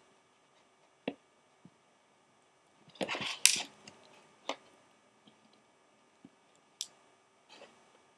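Scattered sharp clicks and taps of a plastic gummy-candy mold being handled while a gelatin gummy piece is taken out of it, the loudest cluster about three seconds in.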